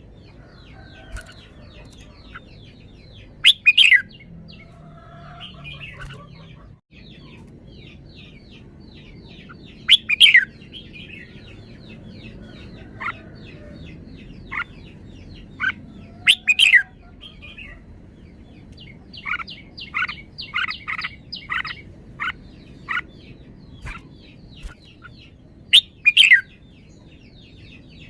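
Red-whiskered bulbul singing: short, loud song phrases about every six seconds, with a run of quick repeated notes in the middle, over a constant background of fast, high chirping.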